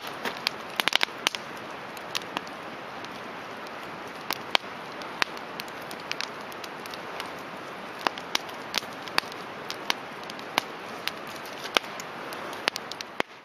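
Wood campfire crackling: irregular sharp pops and snaps, several close together about a second in, over a steady hiss of burning.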